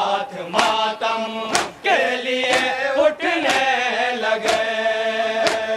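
A group of men chanting a nauha (Shia lament) together on long held notes, with a sharp slap of matam chest-beating about once a second in time with the chant.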